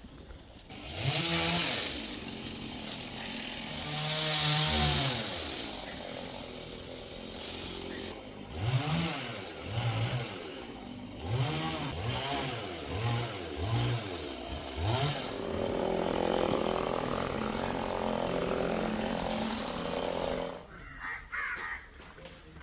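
Stihl two-stroke chainsaw revved up and down several times in quick blips, then held at a steadier high speed for a few seconds before it cuts off near the end.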